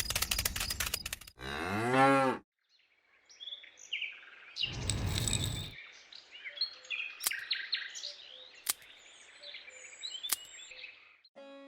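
Cow mooing, one call about two seconds in and a louder one about five seconds in, with small birds chirping throughout and a few sharp clicks.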